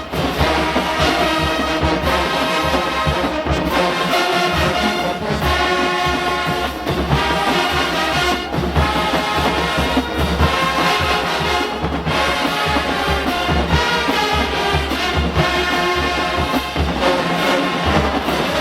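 Marching band playing loudly, the brass section with trombones and trumpets carrying the tune over a heavy drumline beat.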